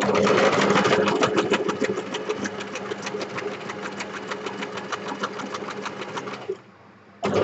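Electric domestic sewing machine stitching through a paper bookmark: a rapid, even run of needle strokes that stops after about six and a half seconds. A brief second burst follows near the end.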